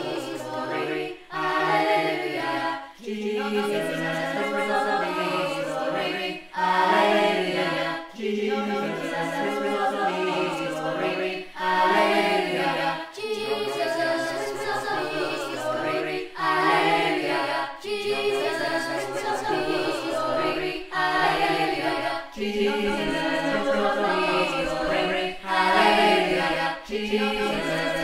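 A group of voices singing unaccompanied, phrase after phrase with short breaks between them.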